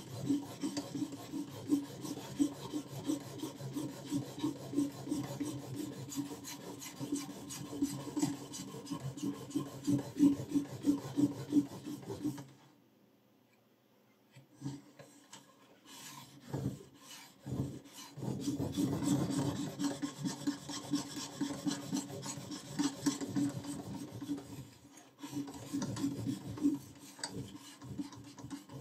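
Sharpening stone of a BECKYRE BY-200R guided-rod knife sharpener rasping back and forth along a kitchen knife's edge in quick, even strokes. About 12 seconds in the strokes stop for a couple of seconds, then pick up again, uneven at first and then steady, with a short break near the end.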